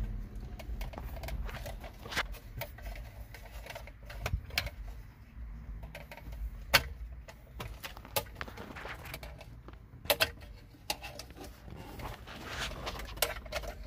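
Scattered sharp plastic clicks and knocks from dashboard trim clips and wiring connectors being handled and pried loose, the loudest about 7 and 10 seconds in, over a low steady rumble.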